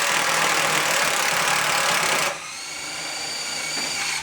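Power drill driving a Posi Lock gear puller's screw to pull the last bearing off an HVAC blower motor shaft. It runs loud and hard for about two seconds, then drops to a quieter run with a steady whine that rises slightly, and stops sharply at the end.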